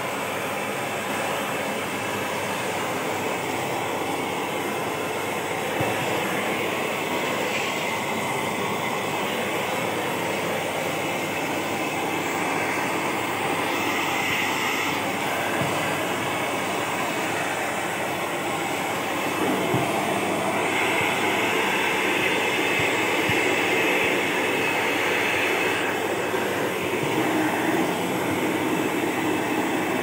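Vacuum cleaner running steadily, its crevice nozzle sucking along the edge of the carpet at the skirting board, with a couple of small knocks from the nozzle.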